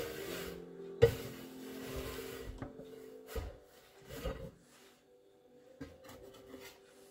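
Spatula scraping melted chocolate off a bench scraper into a pot, with a sharp knock about a second in and a few softer knocks later, over soft background music with long held tones.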